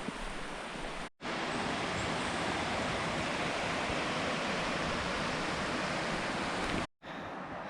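Steady rush of flowing river water, an even hiss with no break in it, cutting out completely for an instant about a second in and again near the end.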